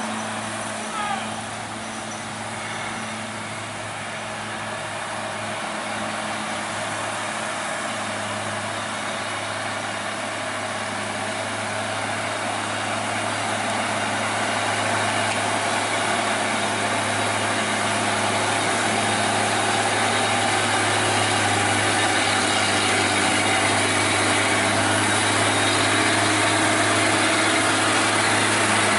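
Heavily loaded diesel cargo truck climbing a steep grade, its engine running at a steady note that grows louder as it comes up close.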